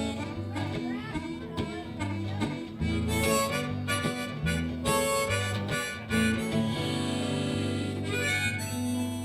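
Live blues band playing an instrumental break: a harmonica leads with held, bending notes over bass, guitar and drums.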